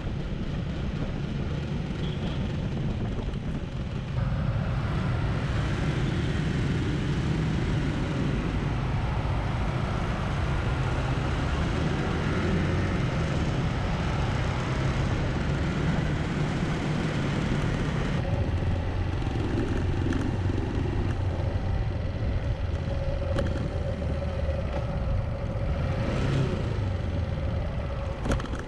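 Motorbike engine running on the move, with wind and road noise and the engines of other scooters around it. It gets louder about four seconds in.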